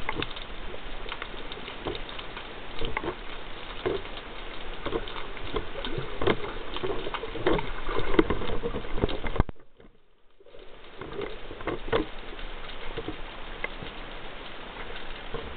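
Underwater noise picked up by a speargun-mounted camera in its housing: a steady wash of water with frequent crackling clicks and knocks from handling and movement through the water. The sound cuts out suddenly for about a second about two-thirds of the way through, then returns.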